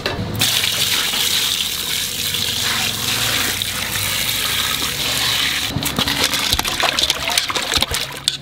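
A stream of water pours into a large aluminium bowl of raw quail, with a steady gushing fill. About six seconds in, this gives way to irregular sloshing and splashing as hands work the birds in the water to wash them.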